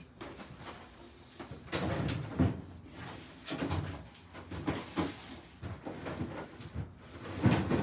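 Footsteps on a wooden floor and a refrigerator door being opened and shut: a few scattered knocks and thuds, the loudest near the end.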